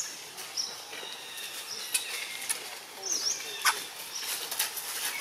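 Outdoor ambience: short, high-pitched chirps that dip and rise in pitch, heard several times over a steady faint high hiss, with a few sharp clicks and rustles; the loudest click comes near the middle.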